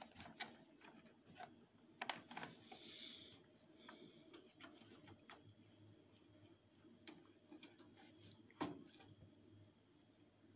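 Faint handling noise as PV cable ends with insulated pin crimp terminals are worked into an inverter's terminal block: soft rubbing and scattered small clicks, the sharpest about two seconds in and again near the end.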